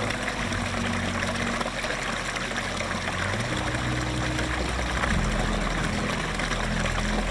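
Small forest stream running over rocks: a steady rush of flowing water.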